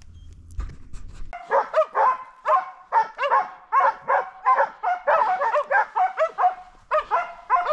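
A pack of boar-hunting dogs baying in the scrub: rapid, overlapping barks from several dogs, starting suddenly about a second and a half in and running on without a break.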